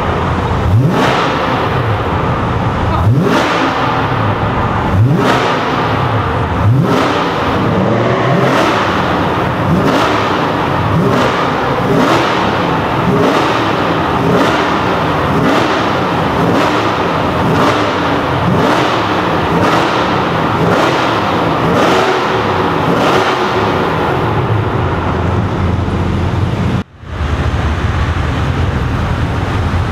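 Sports car engine revved in short rising blips, again and again, about once a second at its quickest, echoing in a tunnel. The sound drops out for an instant near the end.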